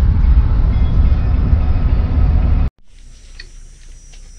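Low, steady rumble of road noise inside a moving car's cabin, cutting off suddenly about two-thirds in. What follows is much quieter open-air sound with a few faint clicks.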